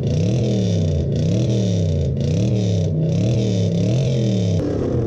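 Engine of a lowered classic compact pickup truck, parked and revved over and over in quick blips, its pitch rising and falling about twice a second. The revving stops shortly before the end.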